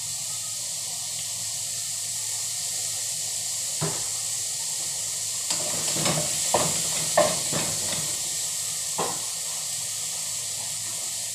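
Garlic and onion sizzling in oil in a pot, a steady hiss, with a few clinks and knocks of a spoon against the pot between about four and nine seconds in.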